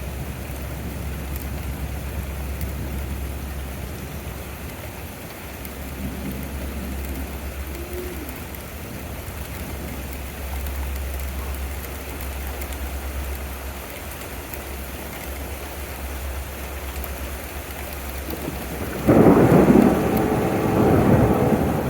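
Steady rain falling throughout. Near the end a sudden loud clap of thunder breaks and rumbles on.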